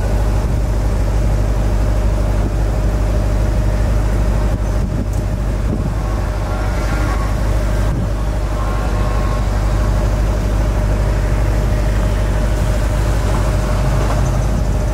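A car engine idling: a steady low hum that holds even and unbroken throughout.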